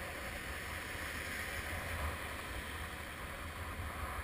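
Shallow sea surf washing and fizzing around the camera, a steady hiss with wind rumbling on the microphone.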